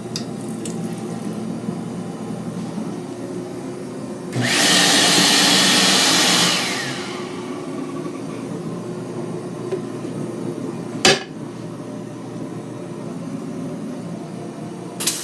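Bombardier BiLevel rail coach toilet flushing: a loud rushing flush lasting about two and a half seconds, over a steady low hum. A single sharp click follows a few seconds later.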